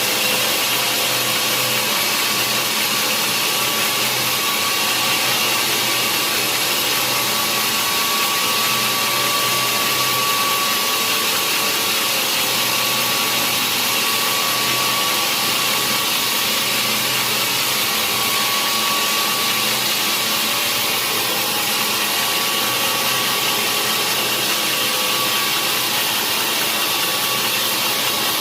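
Sawmill saw running steadily through a log: a constant loud machine noise with a steady whine held throughout.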